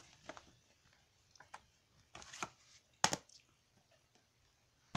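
Handling noise from plastic Blu-ray cases picked up and moved close to the microphone: scattered light clicks and rustles, with a sharper click about three seconds in and another at the end.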